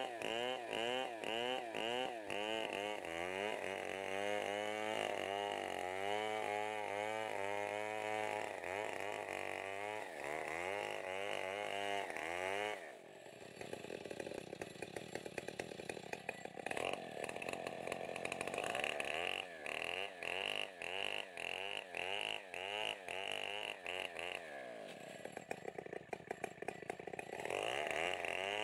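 STIHL 070 two-stroke chainsaw ripping a log lengthwise into planks. Its engine pitch wavers in an even pulse of two or three beats a second under load. About halfway through it falls back to idle, then revs up and cuts again. It drops once more a few seconds before the end and picks up again just before the end.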